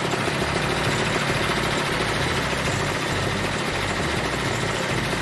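Motor scooter engine running steadily, belted to a stalled engine to drive it.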